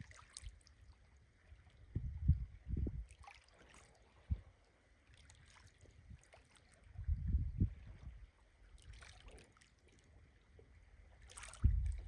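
Wind buffeting the microphone in irregular low gusts, about three times, over faint water lapping.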